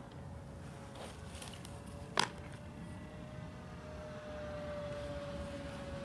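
A softball pops sharply into a catcher's leather mitt about two seconds in, with a fainter tap about a second earlier. A faint steady hum runs underneath.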